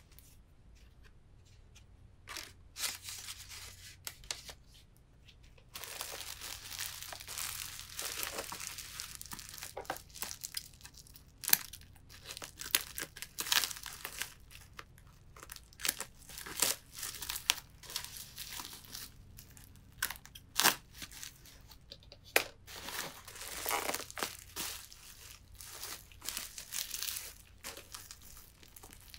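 Bubble-wrap packaging being handled and cut open with scissors: crinkling and tearing plastic with scattered sharp clicks. It begins about two seconds in and is busiest from about six seconds on.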